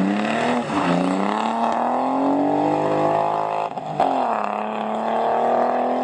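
BMW E30 rally car's engine under hard acceleration on gravel, its pitch climbing steadily as it pulls away from a slide. The revs drop briefly a little before four seconds in, then rise again.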